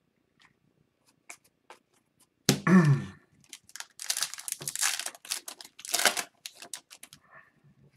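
Upper Deck hockey card pack wrapper being torn open and crinkled by hand: a few light clicks of card handling, a loud sudden rip about two and a half seconds in, then a couple of seconds of dense crinkling as the wrapper is pulled apart.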